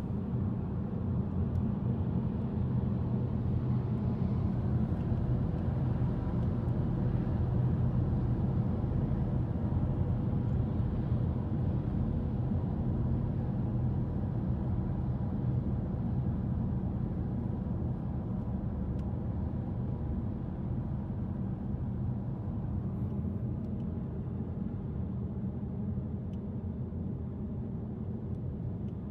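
Car driving along a city street, heard from the car it is filmed from: a steady low rumble of engine and tyres that eases a little over the last third.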